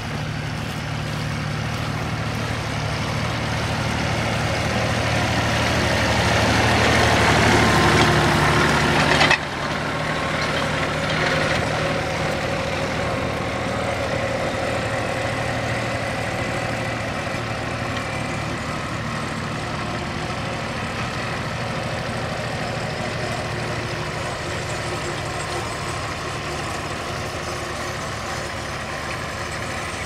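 Allis-Chalmers Model B tractor's four-cylinder engine running under load as it pulls a mounted plough through stubble. It grows louder up to a sudden break about nine seconds in, then runs on steadily.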